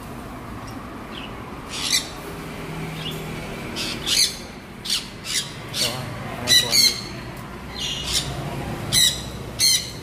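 Parrots giving short, harsh squawks, about ten scattered through the span, the loudest a quick pair a little past the middle and two more near the end.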